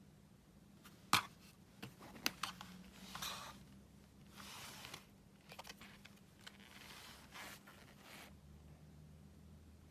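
Handling sounds: a few sharp clicks and knocks between about one and two and a half seconds in, then stretches of rustling and scraping through the middle, with a faint low hum underneath.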